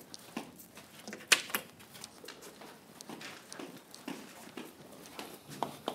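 Chalk tapping and scratching on a blackboard as a formula is written out: irregular sharp taps, the loudest about a second and a half in.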